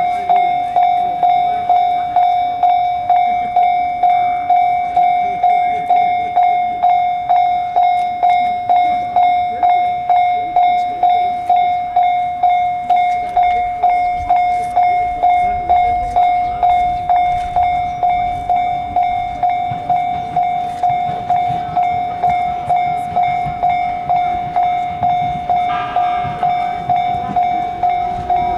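Japanese railway level-crossing warning bell ringing at a steady, even beat, each strike a single ringing tone that dies away, signalling that a train is approaching. A low rumble builds beneath it from about halfway through.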